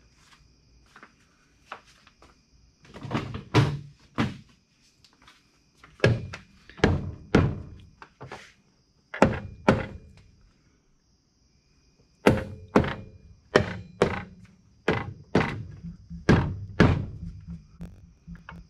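Dull thunks of repeated blows knocking the two halves of a VW Type 1 engine case together to seat them. They come in short runs with pauses, ending in a quick, even run of about ten blows.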